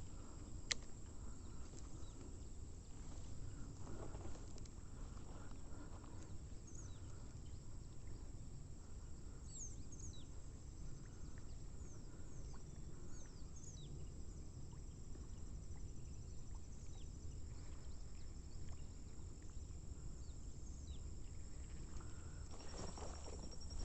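Outdoor lakeside ambience: a low steady rumble with many short, high, falling bird chirps through the middle and a thin, steady, high insect trill near the end. A single sharp click comes just under a second in.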